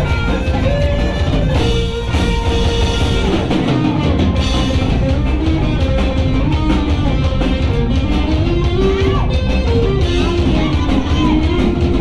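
Live rock band playing: electric guitars, bass guitar and drum kit, with a held melodic line that bends and slides in pitch.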